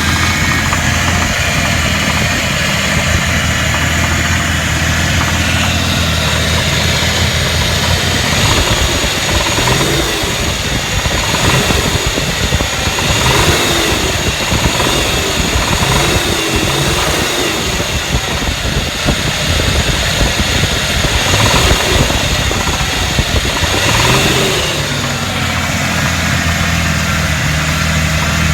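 An engine idling, then revved in a series of short throttle blips through the middle before settling back to a steady idle. The owner questions whether the sound is rod knock.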